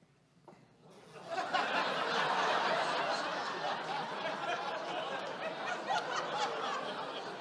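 Audience laughing, starting about a second in and slowly dying down.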